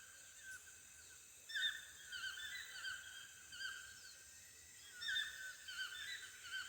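Costa Rican rainforest ambience: short chirping animal calls repeating in two clusters, over a steady high-pitched hiss.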